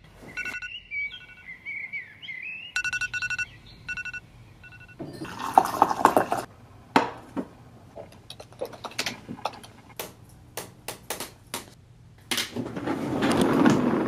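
A digital alarm clock beeps in quick groups of several beeps, with a wavering chirp between them. After a rustling swish, a laptop keyboard is typed on in scattered clicks. Near the end, an office chair swivels and rolls on its casters across a wooden floor in a swelling rumble.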